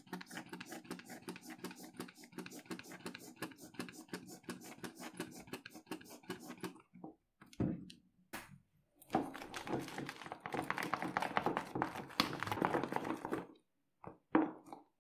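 Palmolive foam soap pump pressed over and over into a tub of glue, a fast, even run of soft clicks and squirts that stops about seven seconds in. From about nine seconds in, wet squishing and scraping as wooden skewers stir the foam and glue, stopping shortly before the end.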